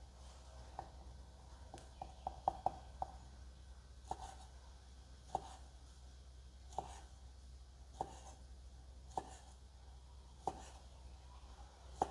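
Kitchen knife chopping through pink cold cut onto a thick wooden chopping board, dicing it into cubes: single sharp knocks a little over a second apart, with a quick run of several between about two and three seconds in. A steady low hum runs underneath.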